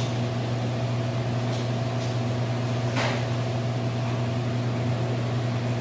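Steady low machine hum with a few faint steady tones above it, like an appliance or cooling unit running, and a short sharp clatter about three seconds in.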